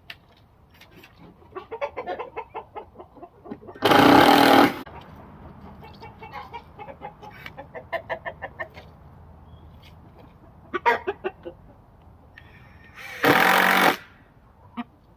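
Two short bursts of a power drill driving screws into a wooden chicken coop door, about four seconds in and again near the end; these are the loudest sounds. Chickens cluck in between.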